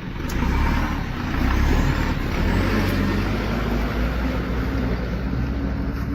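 A heavy vehicle's engine running with a deep, steady rumble, getting louder just after the start and then holding.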